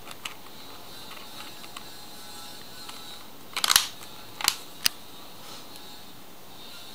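Plastic back cover of a Micromax Unite 3 phone being pressed into place: a quick cluster of sharp clicks about halfway through, then two single clicks soon after, as its clips snap shut.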